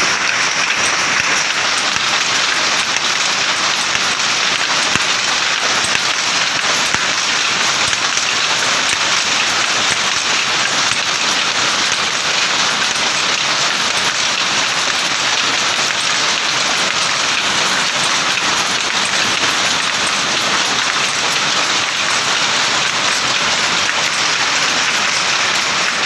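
Power loom running at speed: a loud, steady, dense mechanical clatter with no break.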